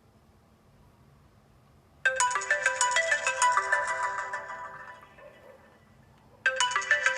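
Mobile phone ringing with a bright melodic ringtone. The chiming phrase starts suddenly about two seconds in, fades away, and starts over after a short pause near the end.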